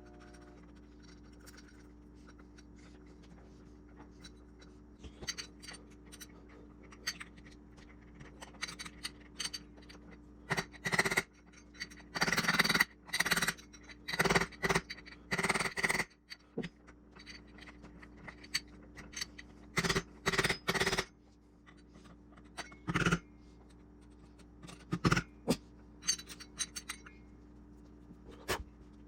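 Intermittent scraping, rubbing and clicking from hand work on parts, in short clusters of strokes over a steady low hum.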